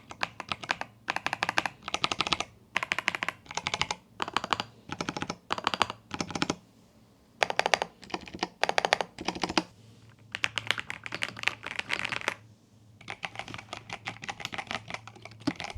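Typing on a Rapoo V700DIY-98 gasket-mounted mechanical keyboard with Speed Silver linear switches and PBT keycaps: quick runs of soft keystrokes in short bursts with brief pauses between, a clean, creamy sound without a deep thock.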